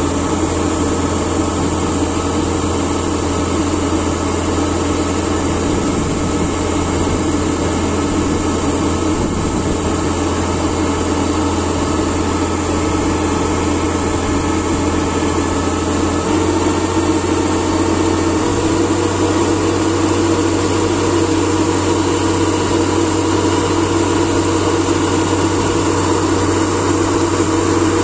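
Kubota Harvesking DC-68G combine harvester's diesel engine and machinery running steadily while its unloading auger discharges threshed paddy grain, a continuous loud mechanical drone. A little over halfway through the tone shifts slightly and gets a bit louder.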